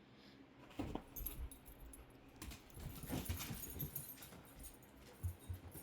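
A dog vocalizing quietly with short grumbles and whines, with a faint jingling like collar tags as the dogs move about.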